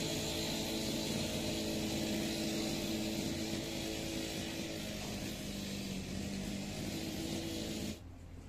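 Small petrol engine of a grass-cutting machine running steadily at a constant speed, cutting off abruptly near the end.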